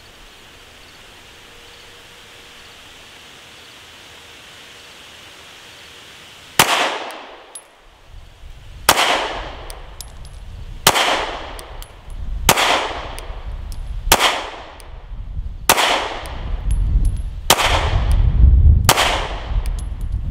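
Glock 43X 9mm compact pistol fired eight times in slow, aimed fire, starting about six and a half seconds in, one shot every one and a half to two seconds, each crack followed by a short echo.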